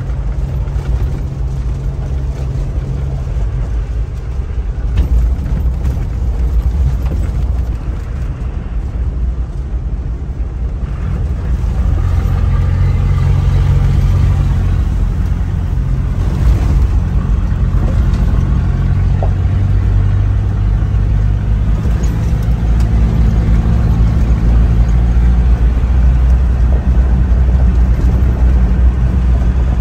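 A 1995 Land Rover Discovery's 200Tdi four-cylinder turbo-diesel engine running under way, heard from inside the cab together with tyre and road noise on a gravel track. The engine note changes pitch several times and gets louder about a third of the way in.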